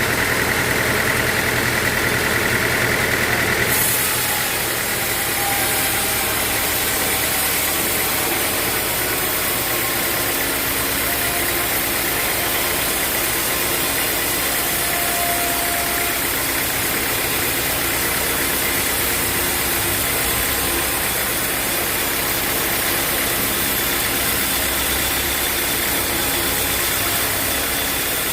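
Sawmill machinery running steadily with a continuous engine-like drone. The sound changes about four seconds in, taking on a high hiss.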